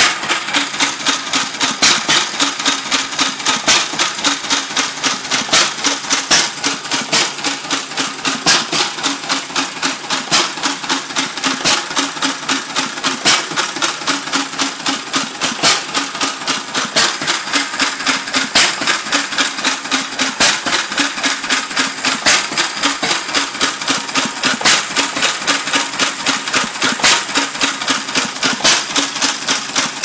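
Lister type B stationary engine running with a fast, even beat of sharp knocks, coughing as it fires.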